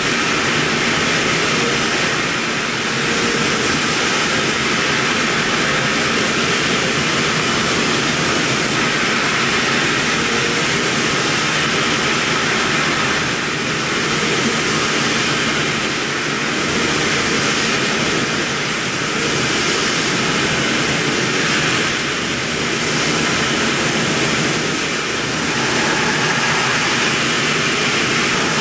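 Mikron VCE800 Pro X CNC vertical machining center milling a metal block: a steady, loud, hissing whir from the spindle and cutter, dipping slightly in loudness a few times.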